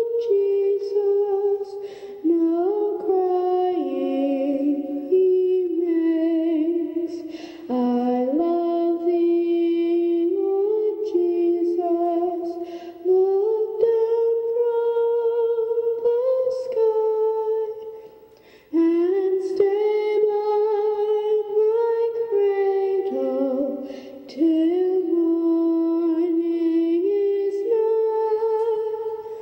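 A woman singing solo, a slow lullaby-like melody with long held notes in phrases separated by short breaks.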